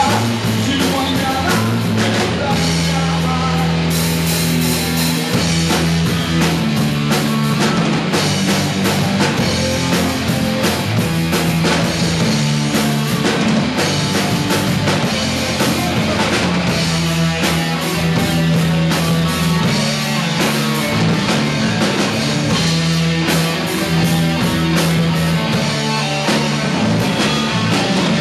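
Rock band playing live, with drum kit, electric guitar and bass; the bass line repeats a short pattern under steady drumming.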